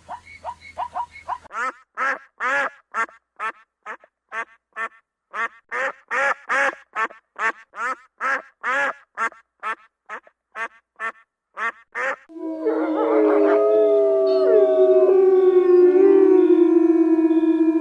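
Canine calls: a run of short, evenly repeated barks, about two a second. From about twelve seconds in, several animals start howling together in long, overlapping calls that glide up and down.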